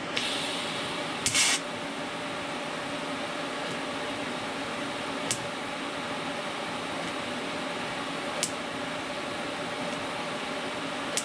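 TIG welder high-frequency arc start: a short crackling hiss, then a sharp snap about a second and a half in as the arc strikes across to the steel, and a low-amperage arc running quietly over the machine's steady fan hum. Three sharp clicks come later.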